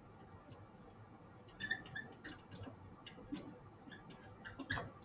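Faint short ticks and brief squeaks of a dry-erase marker writing on a whiteboard.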